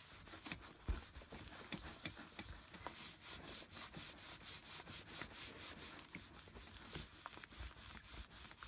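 Hands rubbing and smoothing down a sheet of paper in quick repeated strokes, a few a second, pressing a freshly glued sheet flat.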